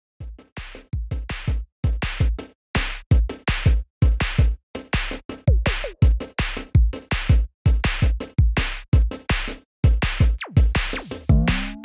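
Electronic background music: a drum-machine beat with heavy kick drums and sharp hits over them in a steady rhythm, with sliding synth sounds near the end.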